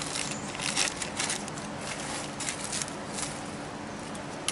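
Plastic packaging crinkling in scattered bursts as a new axle seal is unwrapped, thinning out after about a second and a half, over a faint steady hum.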